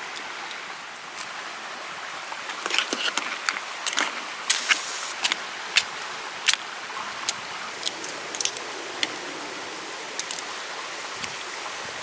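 Steady hiss of rain with irregular sharp clicks and taps, busiest from about three to seven seconds in, as chopsticks lay vegetables into a metal pot of clam soup.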